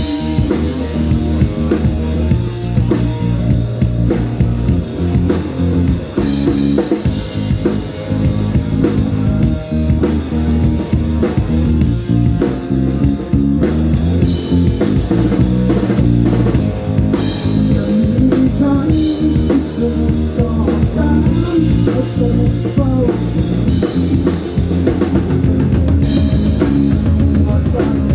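Live rock band playing an instrumental passage: a drum kit with kick and snare, bass and electric guitar, loud and continuous.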